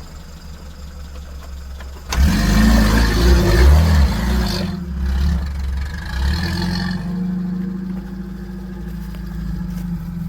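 Off-road vehicle engine idling, then about two seconds in it is revved hard under load, its pitch rising and falling, with a loud rushing noise that fades about seven seconds in; the engine then runs on more steadily.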